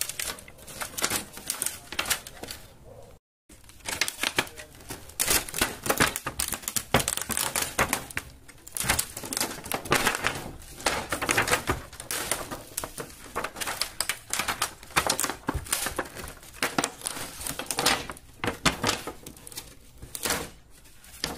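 Thin plastic reflector sheet of an LED TV backlight being lifted and handled over the plastic back panel: dense, irregular crinkling and sharp clicking.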